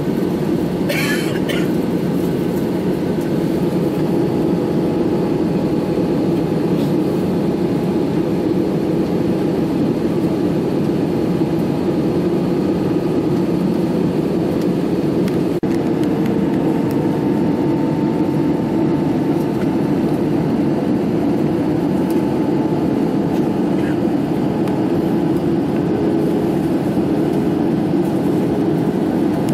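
Steady cabin noise of an airliner in flight, heard from a window seat: the jet engines and airflow make a constant low rush. About a second in there is a brief sharp clink.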